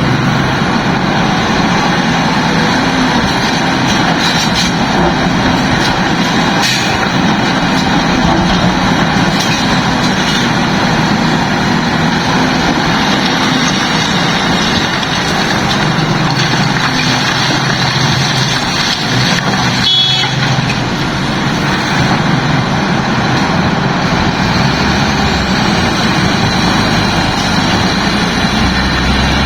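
Heavy diesel engines of a large excavator and a truck at work, running steadily and loudly throughout.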